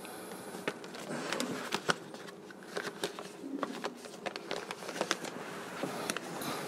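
Quiet room tone in the mosque during the pause between the two parts of the Friday sermon: a faint murmur with scattered small clicks and rustles.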